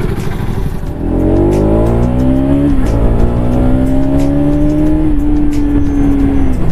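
Motorcycle engine accelerating under way, its pitch climbing, dropping at a gear change about three seconds in, then pulling steadily and easing off near the end, over wind noise.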